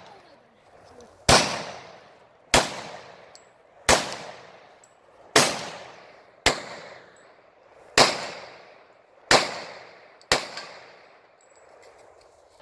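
Eight pistol shots fired one at a time, about a second to a second and a half apart, each followed by a short echo that dies away.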